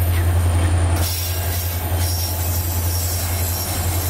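Diesel-electric freight locomotives and rail cars running close by: a steady low engine drone, rolling rail noise and faint high-pitched wheel squeal.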